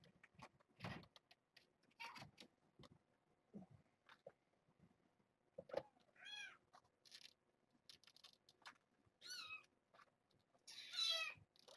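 Young kittens, about three and a half weeks old, mewing: three high-pitched mews, the loudest near the end, amid faint scratching and scuffling.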